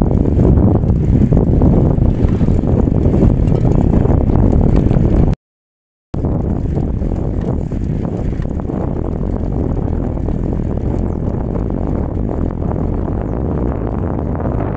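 Steady wind buffeting and road rumble picked up by a handlebar-mounted phone while riding. The sound cuts out completely for under a second about a third of the way in, then carries on a little quieter.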